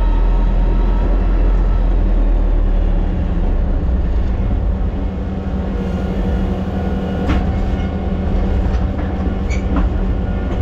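Heavy loader's engine running steadily under work, a deep constant drone, with a few sharp knocks in the second half.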